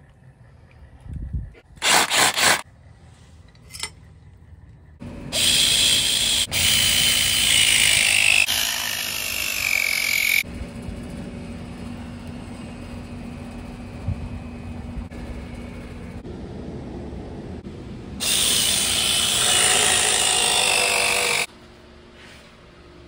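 A power tool running in bursts of a few seconds each, with a quieter steady noise between the longer runs.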